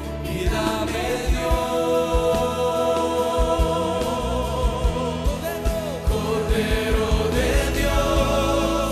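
Live gospel worship song: a male lead singer and backing vocalists hold long sung notes with a slight waver over a band, with a steady low drum beat underneath.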